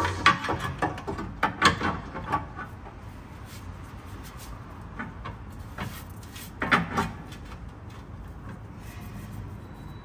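Scattered metal clicks and knocks of a new gearbox mount being set in place against the crossmember, bunched in the first couple of seconds and again about seven seconds in.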